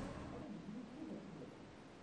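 A swoosh transition effect dying away into a faint, even hiss, with a faint low murmur underneath.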